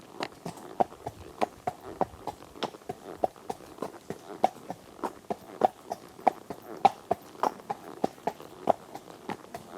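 Hoofbeats of a running horse: a steady, even rhythm of sharp knocks, a louder strike about every 0.6 seconds with lighter hoof strikes in between.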